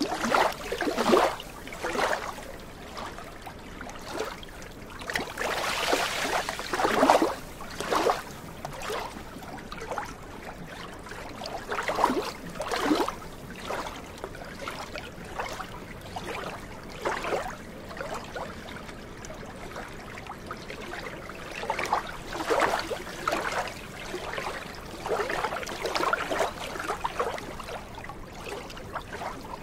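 Small waves lapping and splashing against the shore of a glacial meltwater lagoon. The washes come irregularly every few seconds over a steady low hiss.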